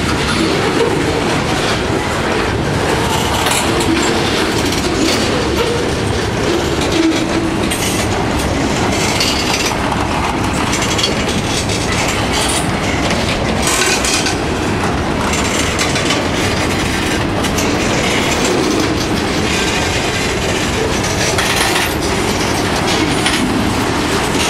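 Freight train cars rolling past close by: a steady heavy rumble with wheels clacking over the rails. Short high wheel screeches come now and then.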